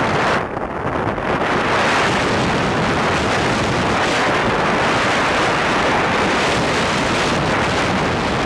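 Wind buffeting the microphone of a moving motorcycle, a loud steady rush with the bike's engine and road noise mixed in underneath.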